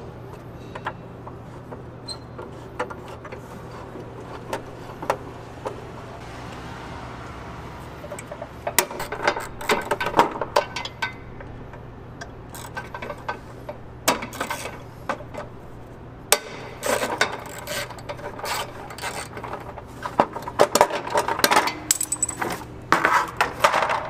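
Clicks, clinks and rattles of a hand tool and fasteners as a plastic engine cover is unscrewed and lifted off. Scattered at first, the noises come in busier clusters about a third of the way in and through the second half.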